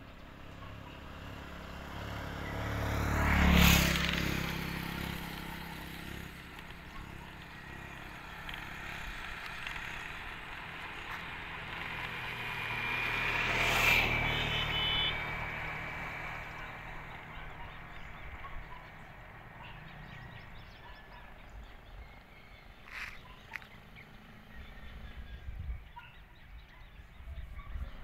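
Two road vehicles passing close by, each swelling up and fading away: the first a few seconds in, the second about halfway through.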